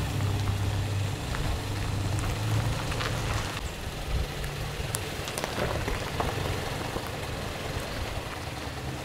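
Toyota Tacoma pickup's engine running at low speed while towing a travel trailer. A steady low hum fades after about three and a half seconds, under a rough hiss with a few light clicks.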